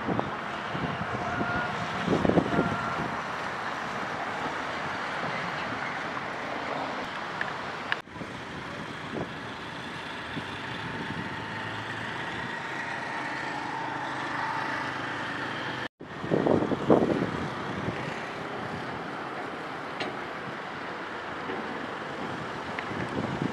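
Street ambience of road traffic: a steady hum of passing cars and motorbikes with a few louder swells as vehicles go by. The sound cuts out briefly twice.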